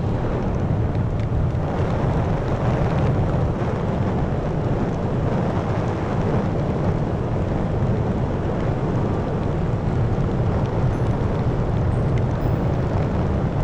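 Steady wind rush on the microphone of a rider at road speed on a Yamaha FZ6N, with the bike's inline-four engine and tyre noise running underneath.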